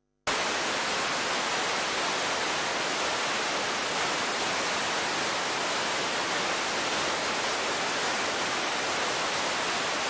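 Steady, loud static hiss, even from low to high pitches, that switches on abruptly and cuts off suddenly near the end.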